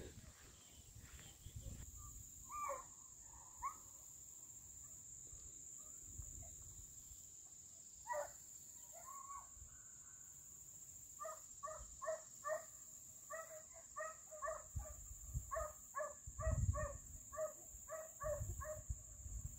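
Faint baying of deer hounds running a chase: a few scattered cries, then from about eleven seconds in a steady run of barks, two or three a second.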